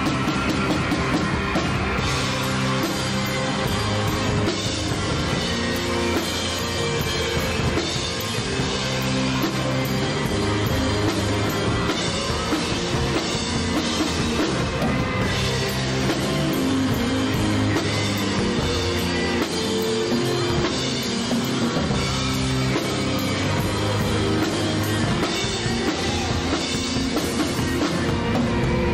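Rock band playing a song: drum kit with guitars and bass.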